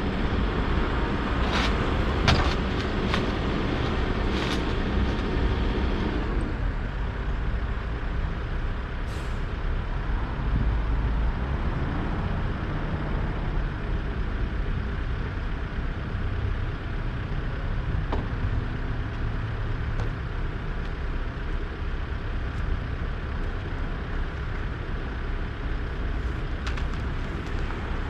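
Mini excavator's diesel engine running steadily while the machine is loaded onto a truck bed. Several sharp metal clanks come in the first few seconds.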